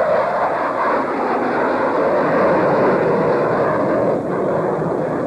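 F-16 Fighting Falcon fighter jet flying past, its single jet engine making a loud, steady rushing noise that eases slightly about four seconds in.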